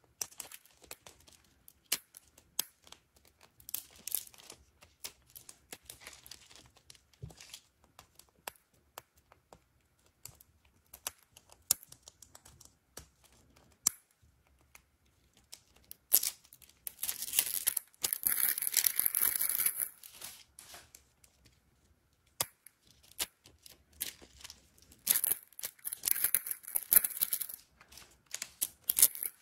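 Thin plastic shrink-wrap being peeled and torn off a plastic toy capsule ball, crinkling and crackling in many small bursts. There are two longer, louder stretches of tearing, about halfway through and again near the end.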